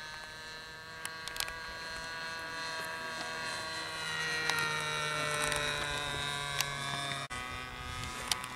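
RC model airplane engine buzzing in flight, a steady whine made of many tones that grows louder about four seconds in, its pitch sinking slightly as it does.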